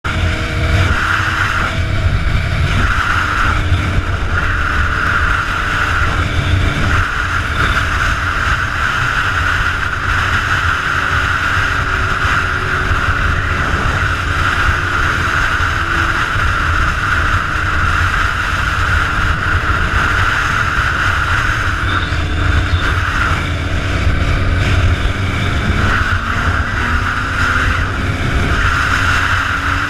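A sport motorcycle running at highway speed, its engine drone half buried under steady wind rush buffeting the camera's microphone.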